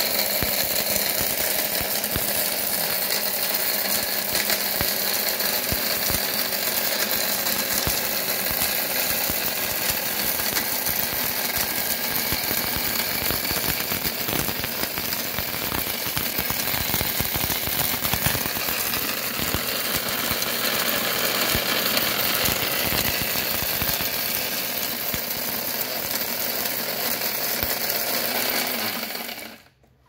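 DC mixer grinder running on battery power with its small stainless steel jar held down by hand: a loud, steady motor sound with a dense rattle. It cuts off abruptly near the end.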